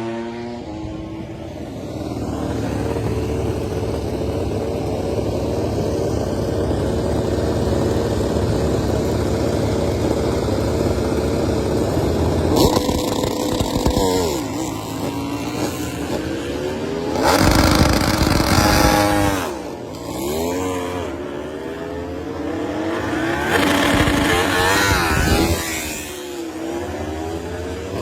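MotoGP racing motorcycle engines running loud, their pitch rising and falling as they rev. Three louder surges come partway through, in the middle and near the end.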